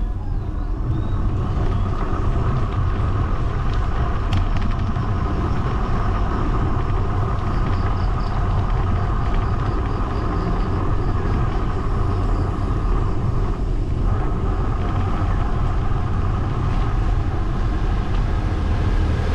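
Steady rush of wind and road noise while riding a bicycle, heavy in the low end, with a brief louder swell near the end.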